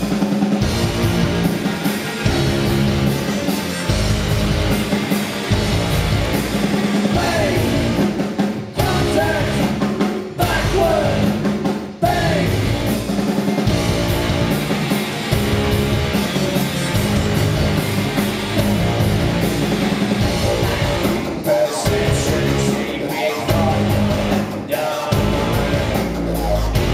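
Live industrial rock band playing loud and steady, with a singer's voice over the music, picked up by a compact camera's built-in microphone.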